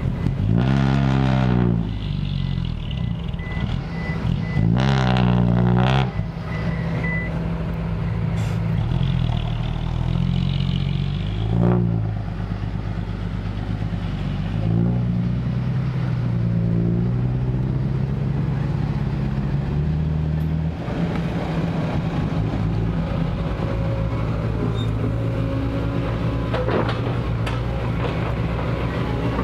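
Diesel engine of a Kobelco SK140 hydraulic excavator working under load, surging in pitch twice in the first six seconds, with a sharp clank about twelve seconds in.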